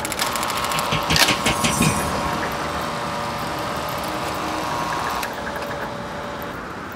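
Typewriter sound effect: a quick clatter of typebars striking, about a second in, followed by a steady mechanical whir that fades out near the end.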